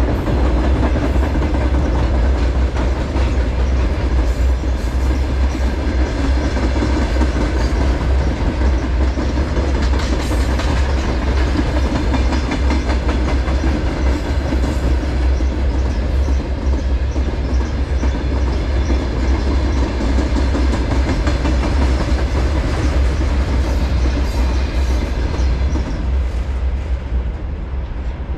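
A train passing close by at speed, its wheels clattering over the rail joints under a continuous heavy rumble, easing slightly near the end.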